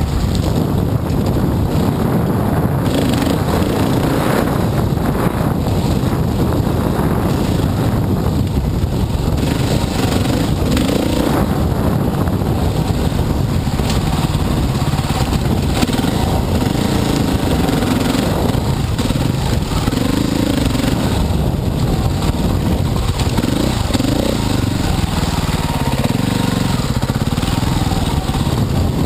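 Dirt bike engine running as it is ridden along a trail, its pitch rising and falling with the throttle, heard from a helmet-mounted camera.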